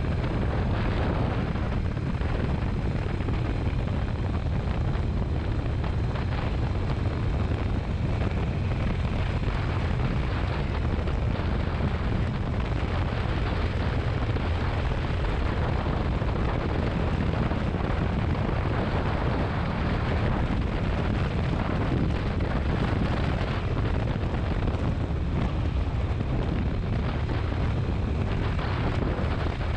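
Motorcycle riding at a steady road speed: engine and a heavy wind rumble on the microphone, unchanging in level.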